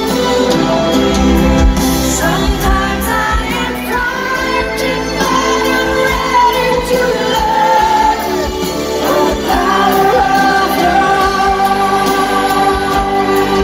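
Live concert performance of a power ballad: a female lead singer sings long held, sweeping phrases over a full band through a concert PA.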